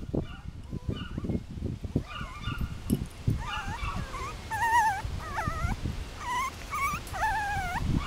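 Five-week-old Miniature Pinscher puppies whimpering and whining: many short, wavering high-pitched cries that come more often from about three seconds in.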